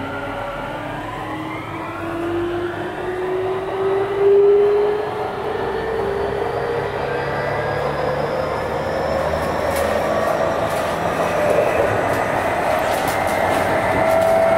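Tokyu 5050 series electric train under way, its inverter and traction motors whining in several tones that rise steadily in pitch as it accelerates, over the rumble of the wheels on the rails. A few sharp clicks come near the end.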